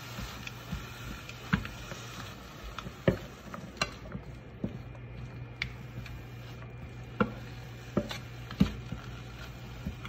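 Wooden spatula stirring and tossing vegetables in a wok, knocking and scraping against the pan a dozen or so times at irregular intervals, over a low steady hum.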